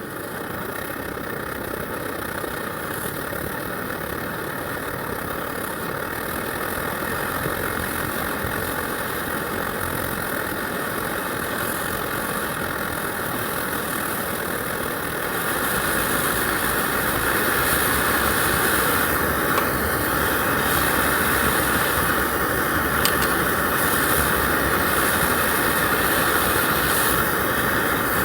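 Camp stove burner running with a steady rushing roar, growing louder about halfway through.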